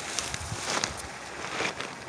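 Rustling and footsteps through tall grass and brush, with scattered short crackles and a few low knocks from the phone being handled.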